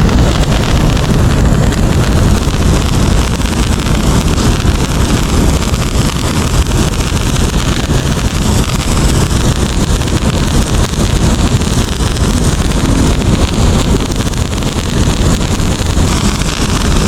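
Wind buffeting the microphone: a loud, steady rushing rumble, heaviest in the low end.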